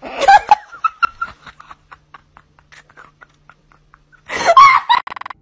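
A person laughing hard: a loud burst at the start that trails off into short, fading giggles, then another loud burst of laughter a little after four seconds in.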